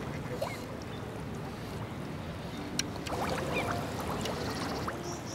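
Water sloshing and splashing around an angler wading in shallow water while a hooked trout is played and brought to hand, with scattered small clicks.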